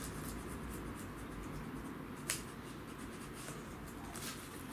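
Knife blade scraping and cutting along the sealed top of a cardboard box: faint scratching with small clicks, one sharper click about two seconds in.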